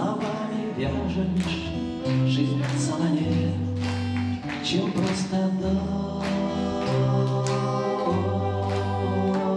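A rock band playing live, with a man singing to his acoustic guitar. Under the voice runs a low bass line that steps to a new note about once a second, with a steady beat.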